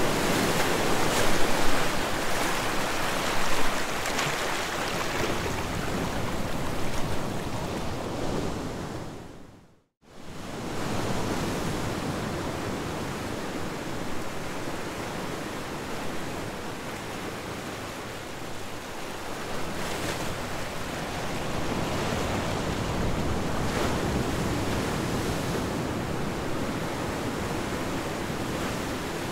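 Ocean surf rushing steadily, swelling and easing; it fades out to silence about ten seconds in and comes straight back.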